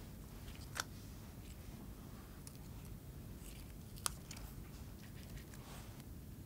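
Fingers plucking fresh mint leaves off their stems over a paper towel: faint small snaps and rustles, with two sharper clicks, one about a second in and one about four seconds in.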